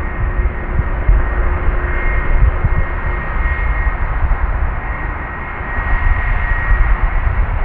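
Airbus A320-232 jet airliner's twin IAE V2500 turbofan engines at close range: a loud, steady rumble with a thin high tone running above it.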